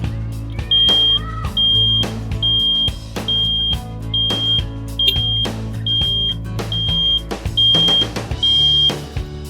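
Background music with a high electronic beep repeated ten times, about one a second, each beep about half a second long and louder than the music.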